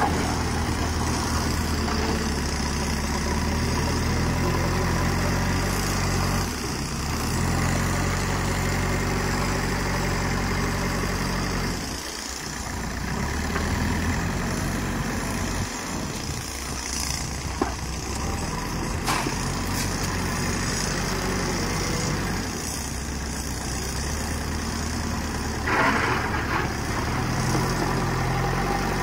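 JCB 3DX backhoe loader's diesel engine running under varying load, its pitch rising and falling several times as the front loader bucket is worked. A couple of sharp knocks come about two-thirds of the way through, and a short burst of noise comes near the end.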